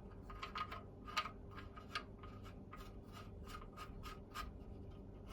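Filler plug of a Mamod SE1 toy steam engine's boiler being screwed back in by hand: a run of short, scratchy metal-on-metal scrapes, about three a second, that stops a little before the end.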